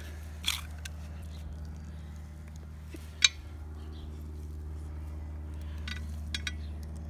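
A few light metallic clicks and taps as a wire valve-stem puller tool is threaded onto a new valve stem in a steel trailer wheel, the sharpest click about three seconds in, over a steady low hum.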